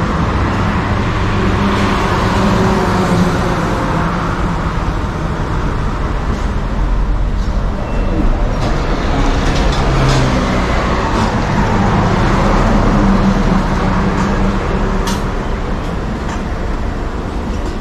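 A large motor vehicle's engine running steadily amid road traffic noise, with a few short clicks in the middle and near the end.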